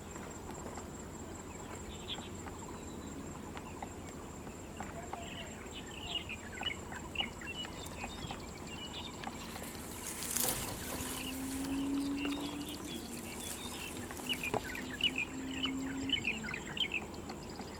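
Taiwan barbet giving its low, hollow call about ten to sixteen seconds in, over many quick, high chirps of small birds that start a few seconds in and run to the end.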